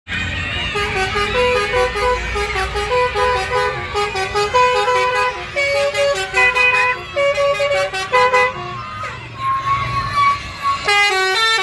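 Bus telolet basuri horn playing a quick melody of short, stepped musical notes, pausing briefly about nine seconds in before the notes start again near the end.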